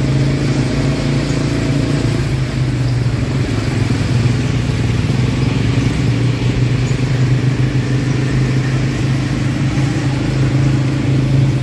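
ATV engine running steadily, a continuous low drone at a fairly even pitch.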